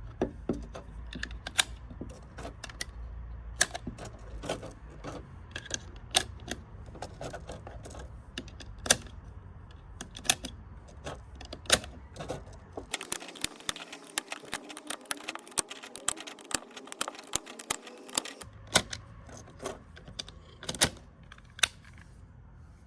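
Rapid, irregular mechanical clicking and clacking, several small clicks a second with a louder clack every second or two, like typewriter keystrokes.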